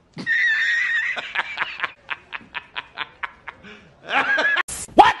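A man laughing heartily: a high drawn-out cackle, then a quick run of about five 'ha' pulses a second that fades, and another burst of laughter near the end.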